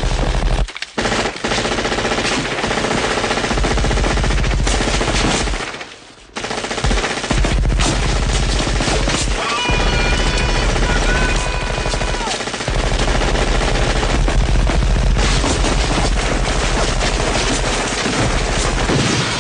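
Sustained heavy automatic gunfire from a minigun and rifles, mixed as a film soundtrack, with short breaks about a second in and around six seconds in. A long held yell rides over the firing in the middle.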